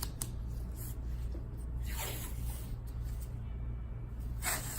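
Adhesive tape pulled off the roll and pressed onto cracked iMac front glass: two short rasps, about two seconds in and near the end, over a steady low hum. The tape holds the cracked glass together so it won't break during removal.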